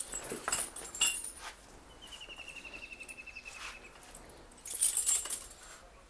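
Metal tether chain clinking and rattling in short bursts as a buffalo is unhooked at the manger, loudest about five seconds in. A thin, high, pulsed trill, falling slightly in pitch, runs for nearly two seconds in the middle.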